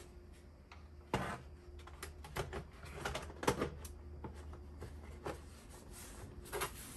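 Hard plastic clicks and knocks as the top cover of a Macintosh LC II is pressed down and fitted onto its case, a handful of scattered snaps, the sharpest about a second in.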